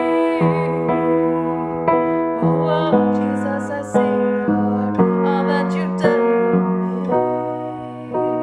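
Grand piano played in slow chords, struck about once a second, with a woman singing a worship song over it.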